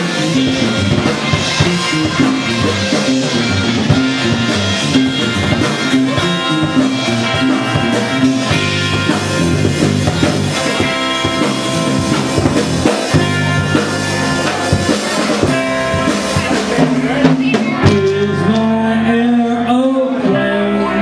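Music with a drum kit keeping a steady beat over pitched instruments, with some singing.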